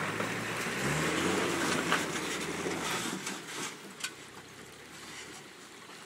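Toyota Hilux diesel engine revving as the ute climbs out of a rocky river crossing. The engine note rises about a second in, then fades as the vehicle pulls away. A sharp knock comes about four seconds in.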